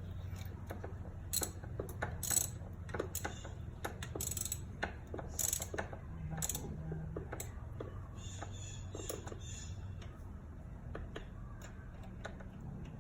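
Metal hand tools clicking and clinking at irregular intervals as a socket and ratchet are worked at a spark plug well, over a low steady hum.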